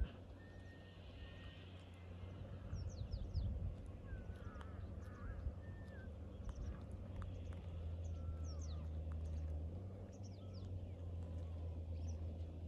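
Small birds chirping and calling on and off, in short sweeping notes, over a low steady hum.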